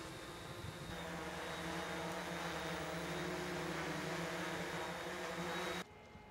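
A steady engine hum with a hiss over it, stepping up in loudness about a second in and cutting off abruptly near the end.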